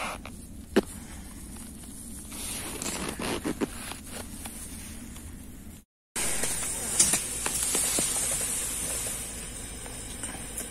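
Footsteps crunching on snow-covered ice, with a steady hiss and a few sharp clicks. About six seconds in the sound cuts off abruptly, and a louder hiss follows with scattered clicks and rustling as a caught fish and a plastic bag are handled.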